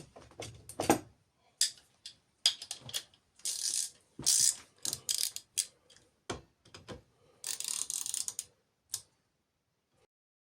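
Metal hand tools clicking and scraping in an irregular run of sharp clicks and short rasps, typical of cutting an M10 thread by hand. The sound stops about nine seconds in.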